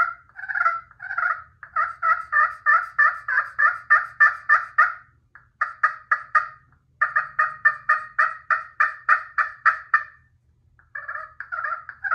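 Glass side of a slate-over-glass pot call, played with a purple heart striker, making yelps that imitate a hen turkey. The notes come in several runs, about four a second at their fastest, with short pauses between the runs.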